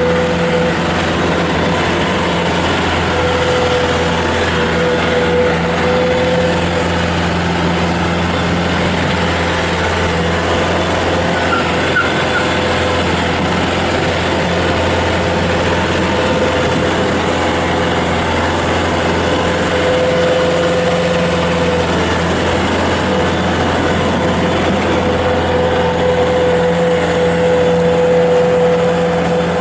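Bobcat S220 skid steer loader's Kubota turbo diesel engine running at a steady speed, with a steady whine over the engine note.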